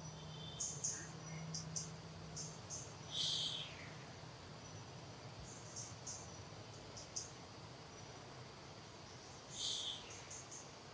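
Insects chirping outdoors in short, high-pitched bursts, with two louder high chirps, one about three seconds in and one near the end.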